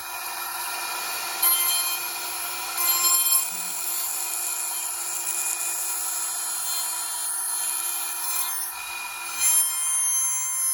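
DIY CNC router's spindle running with a steady whine while the bit cuts into wood, the cutting noise swelling louder three times, about a second and a half in, around three seconds, and near the end.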